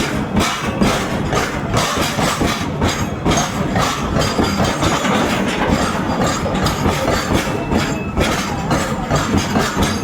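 Train running over the rails, its wheels clattering steadily over the track.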